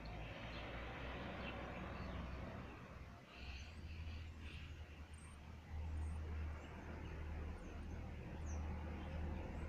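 Outdoor background: a steady low rumble, like wind or handling on a phone microphone, with short faint bird chirps scattered through it.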